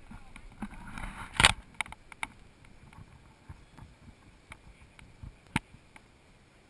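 Mountain bike rattling over rough trail: irregular clicks and knocks, with one hard knock about one and a half seconds in. It thins out to a few scattered clicks.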